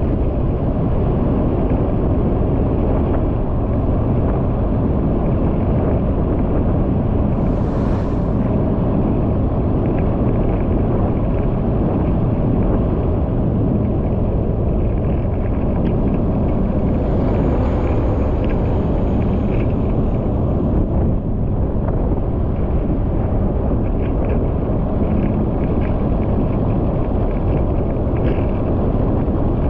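Steady, loud low rumble of road and wind noise from a vehicle travelling at about 50 km/h on a paved road.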